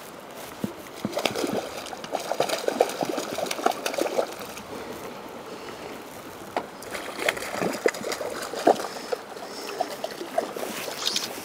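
Shallow water splashing as a hooked tiger trout thrashes at the surface close to shore, mixed with irregular footsteps and knocks on rocks and dry logs.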